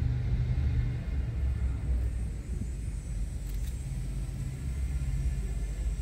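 Steady low engine rumble with a constant hum, like an idling motor running nearby.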